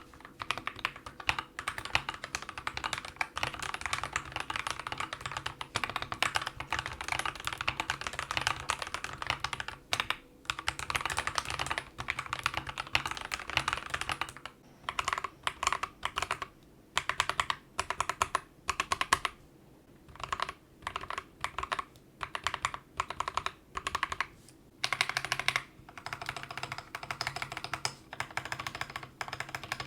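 Typing on a mechanical keyboard. For about the first fourteen seconds it is a steady run of keystrokes on lubed Akko CS Starfish switches. Akko CS Jelly Black switches (stock) follow: keys are pressed in short clusters with brief pauses between them, then steady typing resumes for the last few seconds.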